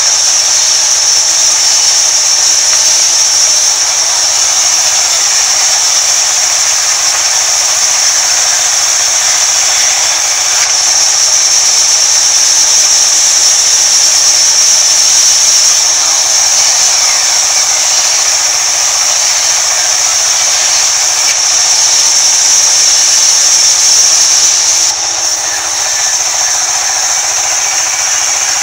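Sawmill band saw ripping a long wooden plank: a loud, steady, high-pitched hiss of the blade cutting through the wood. It eases a little near the end.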